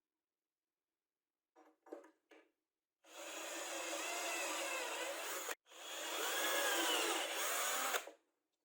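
Handheld electric power tool running in two bursts of about two and a half seconds each, its motor pitch dipping and rising as it works under load, after a few light knocks.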